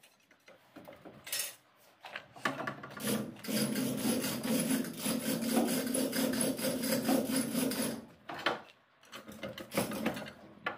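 Manual chain hoist being hauled hand over hand, a steady rattling, rasping chain sound lasting several seconds. Short scraping knocks of a steel pry bar levering at the engine block come before and after it.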